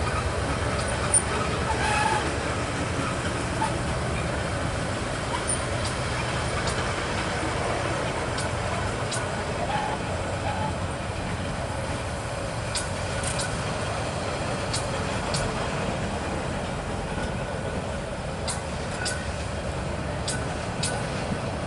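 Passenger train coaches rolling past on the track: a steady rumble of wheels on rail, with short, sharp clicks now and then, more of them in the second half.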